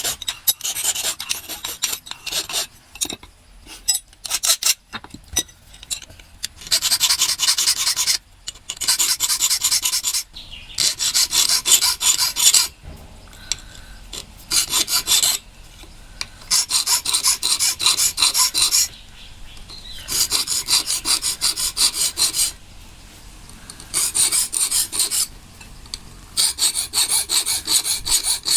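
Hand file rasping on the steel blade of a chirava coconut scraper, shaping its teeth. It goes in bouts of quick strokes, each a second or two long, with short pauses between them. The first few seconds hold more scattered scrapes and clicks.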